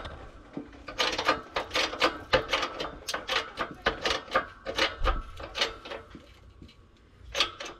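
Hydraulic shop press being hand-pumped, a rhythmic run of mechanical clicks about three a second as the ram presses a solid billet bushing into a car's subframe. The clicking stops about six seconds in, with one more click near the end.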